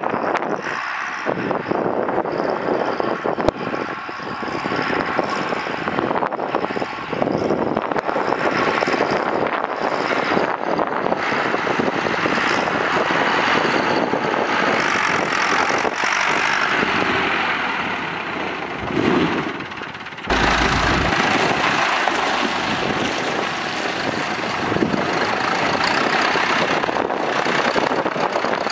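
Volvo BM 2250 farm tractor's diesel engine running as the tractor drives along a road and turns onto gravel; the sound changes abruptly about twenty seconds in.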